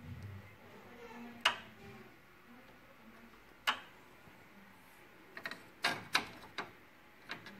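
Scattered sharp clicks and knocks of plastic and metal printer parts being handled during disassembly of an HP LaserJet P3005, with a quick cluster of clicks about two thirds of the way through.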